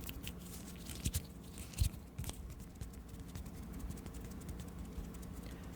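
Close-miked ASMR mouth sounds: soft, scattered wet clicks and pops, with a few sharper clicks in the first half.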